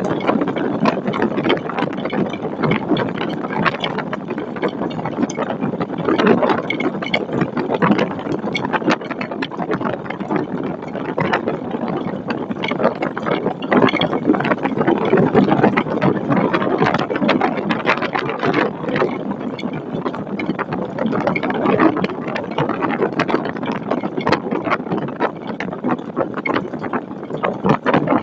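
Storm wind buffeting an outdoor webcam microphone: a steady rushing noise that swells in gusts, with a dense, continuous crackle of rattling clicks.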